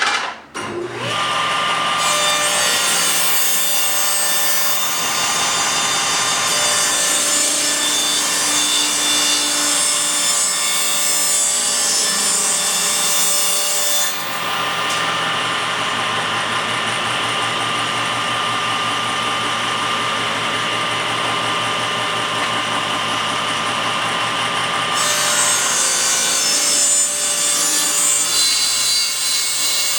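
Table saw running and ripping the edge of a board to square it, a steady sawing noise that starts about a second in.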